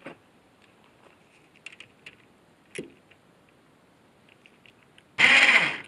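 Light clicks and taps of a ratchet and wiring terminals being fastened on an electric ATV winch's motor. About five seconds in, the winch motor switches on with a loud whirring whine for a moment, then winds down with a falling pitch near the end, a test run after wiring it up.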